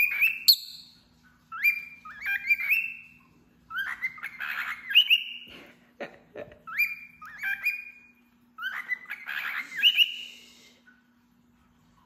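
Cockatiel whistling its song: short phrases of rising whistled notes, repeated about five times with brief pauses between them.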